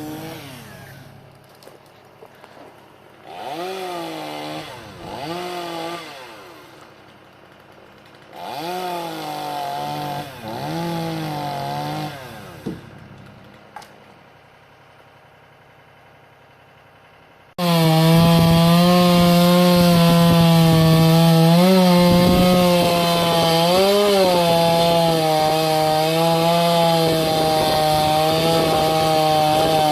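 Chainsaw revving in short bursts that rise and fall in pitch, then, a little past halfway, a much louder chainsaw cuts in close and runs at high speed, its pitch dipping and recovering as it cuts wood.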